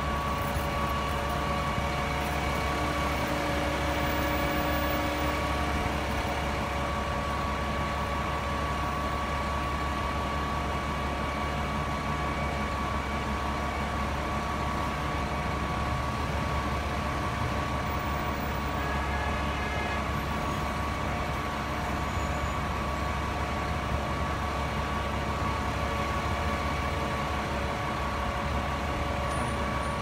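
Fire truck's diesel engine idling steadily, a constant low hum with a steady high whine over it.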